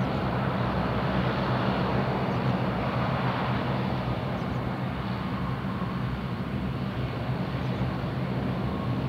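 De Havilland Canada Dash 8-400 (Q400) taxiing at low power, its two Pratt & Whitney PW150A turboprops and propellers giving a steady drone. A few held low tones sit over an even engine noise.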